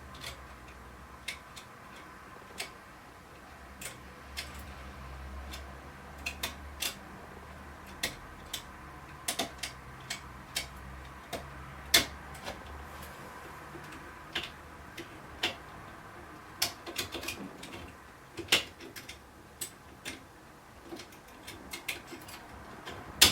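Lock picks working inside an ERA Fortress sashlock, a lever mortice lock: irregular light metallic clicks and taps as the levers are lifted and set, with a faint low hum underneath for the first half.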